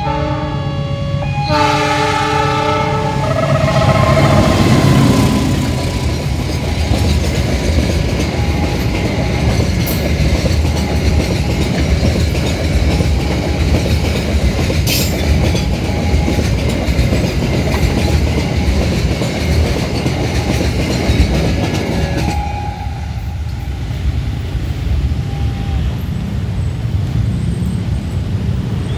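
A passenger train sounds its horn as it reaches the level crossing, the horn chord dropping in pitch as it goes by. Then the train's long, loud rumble runs over the crossing for nearly twenty seconds, easing off about three quarters of the way through.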